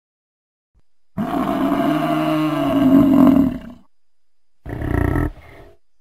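A bull bellowing: one long call, then a shorter one about five seconds in.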